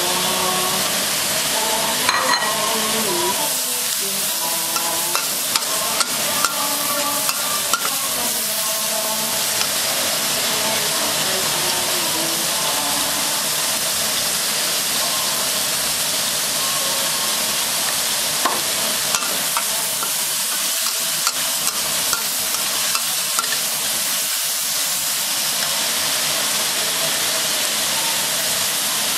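Luhao (Selenga wormwood) stems and shredded pork sizzling steadily as they are stir-fried in a stainless steel wok over a gas flame. The metal spatula scrapes and clicks against the pan now and then.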